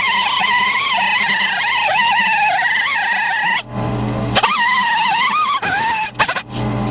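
Grinder working on the Camaro's sheet-metal rocker panel: a loud, steady screech that wavers in pitch. About halfway through it is lifted off the metal for under a second, leaving only a lower hum, then it bites again, with a few short breaks near the end.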